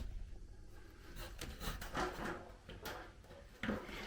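Faint scattered rustling and a few light knocks from someone moving about and handling things in an attic, with a sharper bump about three and a half seconds in.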